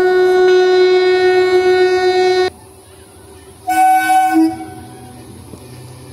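EMU local train horn: one long steady blast that cuts off abruptly about two and a half seconds in, then a short blast about a second later. After that, the low running rumble of the approaching train.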